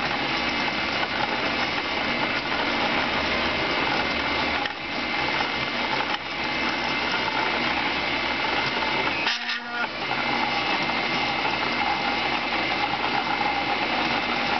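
Home-built CNC coil winder running steadily, its stepper motors whining as the spindle turns the bobbin and winds 24-gauge Litz wire onto the coil. The sound breaks briefly about nine seconds in.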